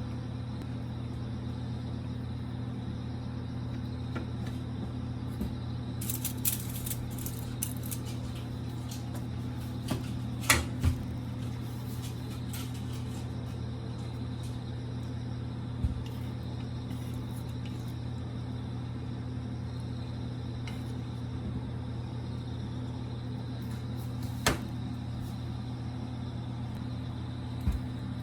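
A steady low mechanical hum, with a few scattered clicks and knocks over it; the loudest is a double knock about ten seconds in.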